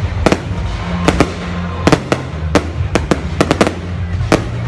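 Fireworks going off in an irregular run of sharp bangs, about two to three a second, over music with a steady low bass line.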